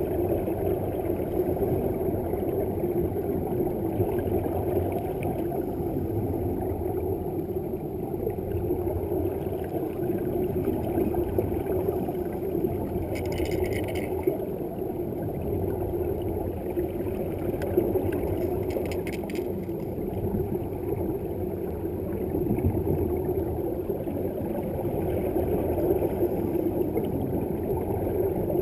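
Muffled, steady underwater rumble picked up through a sealed camera housing during a scuba reef walk. Two brief crackly bursts of bubbles from a diver's regulator exhaust come about halfway through and again a few seconds later.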